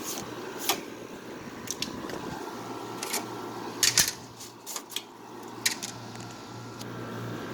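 Scattered clicks and knocks of the window air conditioner's plastic parts (side curtains, filter, panels) being handled, the loudest two close together about four seconds in, over a faint steady low hum.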